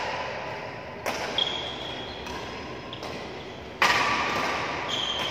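Badminton racket strikes on a shuttlecock, echoing in a large hall: a sharp hit about a second in and a louder one near four seconds in. A brief high squeak sounds between them.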